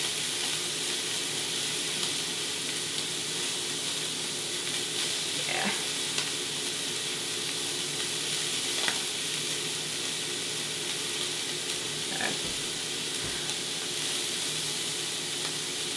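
Steaks searing in a frying pan, sizzling steadily.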